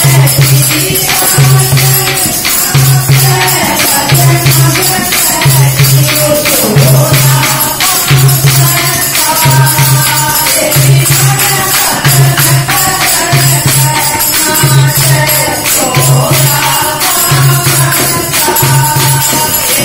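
Group of women singing a Haryanvi devotional folk song (a Krishna bhajan) together, with a dholak beating a steady rhythm: a deep drum stroke about once a second under bright jingling percussion.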